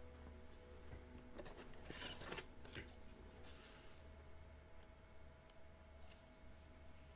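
Near silence: faint, steady low hum, with a few soft rustles of trading cards being handled, the loudest about two seconds in and another near the end.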